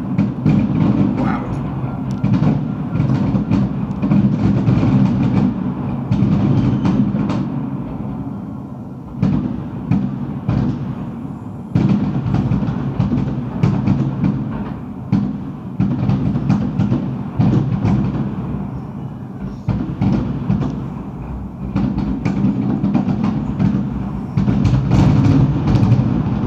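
Fireworks going off in a rapid, continuous barrage of bangs and crackles over a steady low rumble, with fresh loud volleys about 9, 12 and 20 seconds in.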